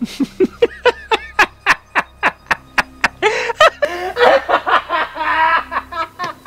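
A man's loud, maniacal villain's cackle: quick staccato "ha"s at about four a second, breaking into longer, wilder stretches of laughter about three seconds in, then back to short bursts near the end.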